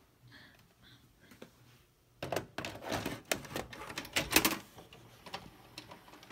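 A VHS cassette being pushed into a Panasonic VCR: about two seconds in comes a couple of seconds of clicking and clattering as the loading mechanism takes the tape in, loudest near the end of the burst, then only faint ticks.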